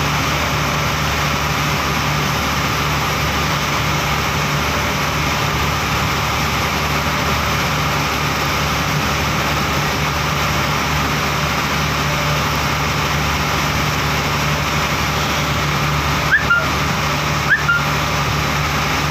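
Motorized pump boat engine running steadily under way, with water rushing along the hull. Two brief sharp squeaks stand out near the end.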